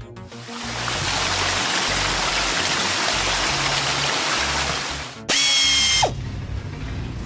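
Cartoon sound effect of high-pressure water jets spraying a truck in a car wash: a steady hiss that stops just after five seconds in, over background music. It is followed by a brief, louder, high-pitched effect with steady tones that ends in a quick falling tone.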